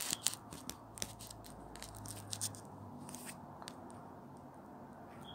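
Faint handling noise from the handheld recording device: a run of irregular clicks and crackles over the first three seconds or so as it is moved, then steady low room tone.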